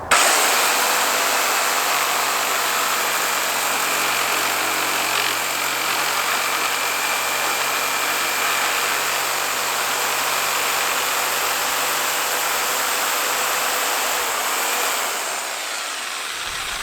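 Handheld electric power tool running under load, grinding a round workpiece down to a point. It starts abruptly with a steady, dense grinding noise carrying a faint whine, then eases off shortly before the end.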